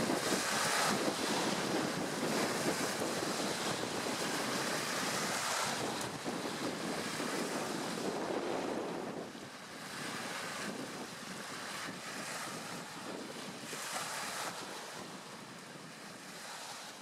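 Choppy open water, small wind-driven waves washing and lapping, with wind gusting on the microphone; it gradually fades over the last several seconds.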